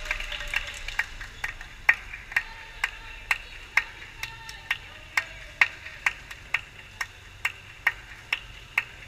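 Rubber dodgeball bounced steadily on a wooden gym floor, about two bounces a second, each with a short ringing ping, with fainter bounces from other balls in between.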